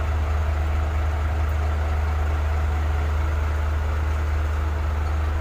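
Hino common-rail diesel truck engine idling steadily, heard from inside the cab, running on a newly fitted supply pump and injectors that the scan tool reports as normal.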